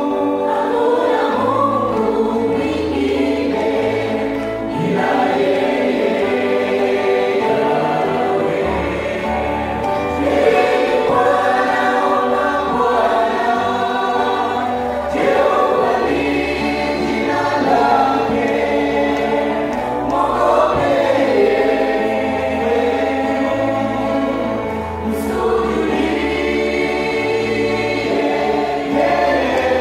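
Mixed youth choir singing a gospel song in several-part harmony, voices carried through handheld microphones.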